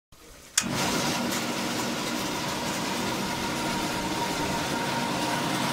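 Coffee cherry processing machinery running: pulping machines and a vibrating screen giving a steady mechanical hum with a high steady whine. It cuts in suddenly about half a second in.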